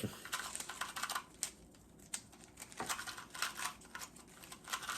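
Turning a 2x2 speed cube by hand: irregular runs of quick plastic clicks as its layers are twisted during a solve.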